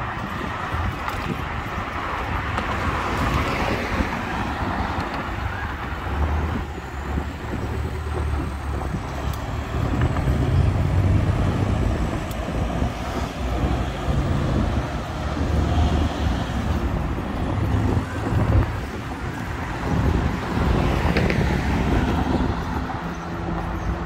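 Road traffic: cars and trucks running past, a steady low rumble heard from the roadside.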